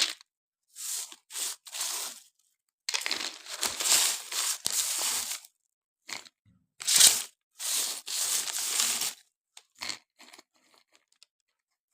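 Crisp fried nimki pieces rustling and crunching against each other as they are tipped and packed into a storage jar, in several irregular bursts, with a few light clicks near the end.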